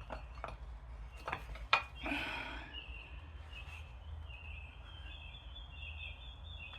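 A few sharp clicks and a knock in the first two seconds, then a bird chirping repeatedly over a steady low hum.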